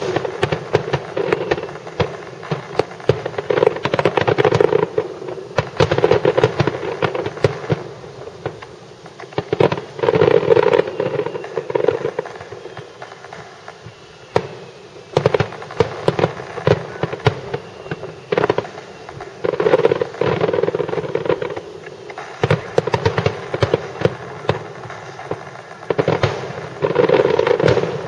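Fireworks display: many aerial shells bursting in quick succession, sharp bangs coming in dense volleys with short lulls between them.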